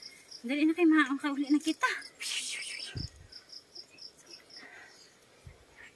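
Insects chirping in a steady high-pitched pulse, about four a second. A young voice is heard for a moment near the start, and a soft thump about halfway.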